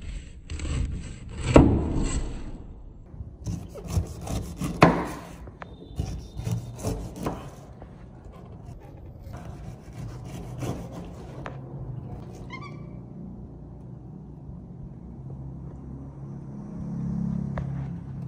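Food preparation in a kitchen: irregular scraping and rubbing with sharp knocks, like utensils working on a wooden surface, for the first several seconds. After that it settles into a low steady hum.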